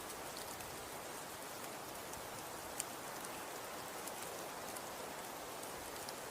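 Wind with falling snow: a steady, even hiss with scattered faint ticks and one sharper tick about three seconds in.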